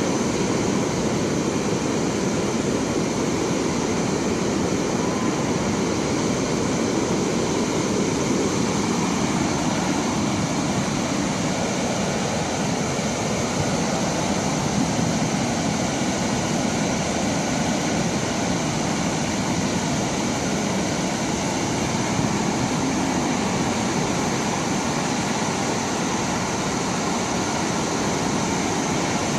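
Floodwater pouring through a dam's open spillway gates and churning below: a loud, steady rush of water.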